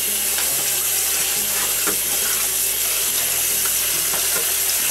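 Kitchen faucet running steadily into a carbon steel wok in a stainless steel sink, the stream splashing off the pan as it is rinsed, with a few faint clicks.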